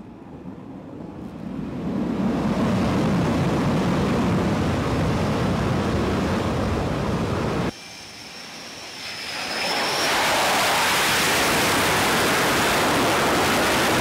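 Jet engine noise from a fighter jet on approach, growing louder over the first two seconds and holding steady. It cuts off suddenly; jet noise on an aircraft-carrier deck then starts, with a thin high whine, and swells about two seconds later into a loud, steady, bright roar.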